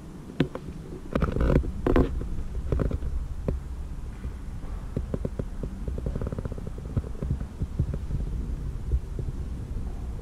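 Low rumble with scattered knocks and clicks, thickest in the first three seconds, then a run of quick soft ticks: handling noise on a handheld camera's microphone.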